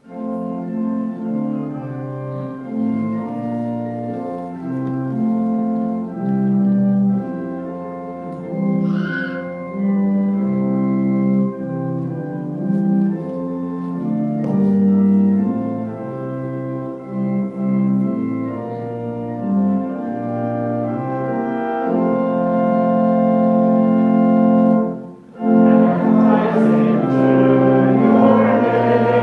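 Organ playing the opening hymn in held chords that change about every second. Near the end it breaks off briefly, then comes back fuller as the hymn itself begins.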